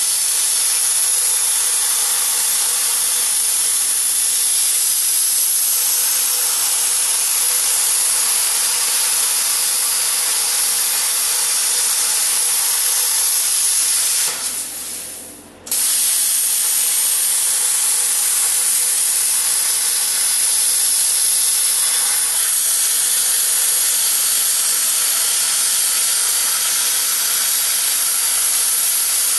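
Plasma cutter cutting steel plate: a steady, loud arc hiss. About halfway through the arc cuts out for about a second and a half, then strikes again and carries on cutting.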